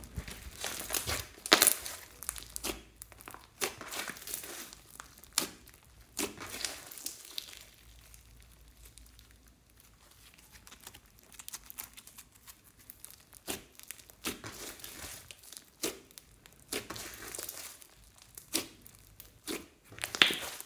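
Hands squishing, stretching and pressing clear slime packed with glitter and floam beads: irregular sticky crackling and clicking, quieter for a few seconds in the middle.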